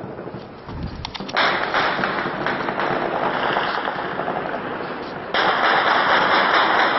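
Intense gunfire heard across a city at night: a few separate cracks, then from about a second and a half in a dense crackle of many overlapping shots, growing suddenly louder about five seconds in.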